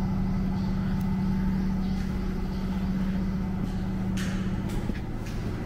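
A steady low mechanical hum, with footsteps on concrete station steps joining about two-thirds of the way through, about two steps a second.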